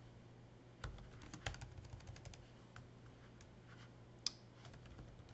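Faint typing on a computer keyboard: a quick run of key clicks, then after a pause a single louder click and a few more light taps near the end.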